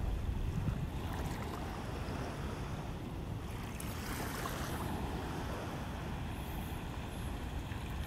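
Wind buffeting the phone's microphone as a steady, uneven low rumble, with the soft wash of small waves at the shoreline underneath.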